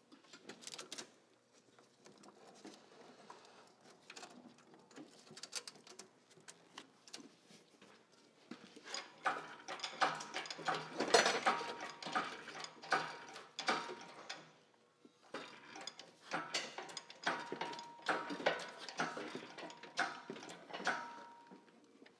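Engine hoist and its lifting chains clicking and rattling in rapid ticks, with knocks of metal, as a Subaru EJ205 engine is lifted out of the engine bay. The clicking is sparse at first and busiest in the second half, and a thin steady whine runs through the last several seconds.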